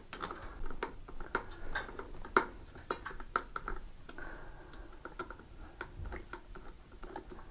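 Irregular small clicks and scrapes of a hand screwdriver turning the mounting screws of a photocell's cover plate into an outlet box, with the plate and screws being handled.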